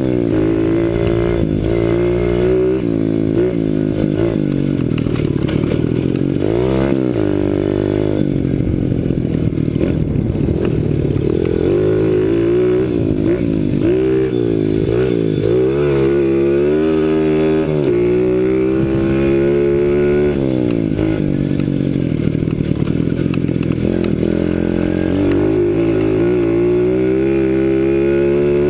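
CRZ 125 Pro pit bike's single-cylinder four-stroke engine being ridden hard, its revs rising and falling again and again as the throttle opens and closes, with deep drops in pitch about a quarter, half and three quarters of the way through.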